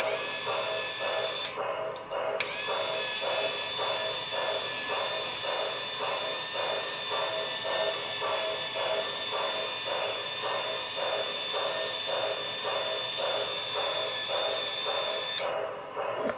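Electric motor of an MTH standard gauge toy crane running with a steady high whine; it stops briefly about a second and a half in, then runs steadily again before cutting off near the end. A regular rhythmic pulsing runs underneath throughout.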